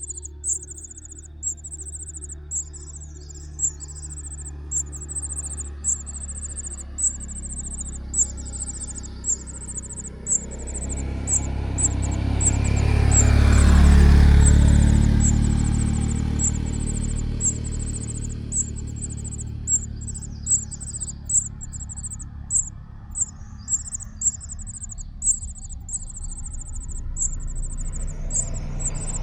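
An insect, cricket-like, chirping in a steady repeated high-pitched rhythm, while a motor vehicle passes by, swelling to its loudest about halfway through and then fading.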